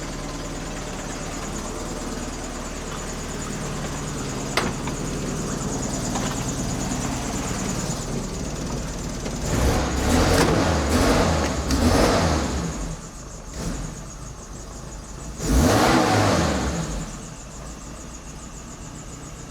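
1992 Suzuki Samurai's engine idling rough on the choke, then revved in a few quick blips around the middle and once more about three-quarters of the way in before settling back to idle.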